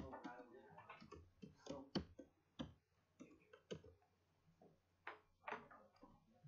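Faint, irregular clicks from a computer mouse and keyboard.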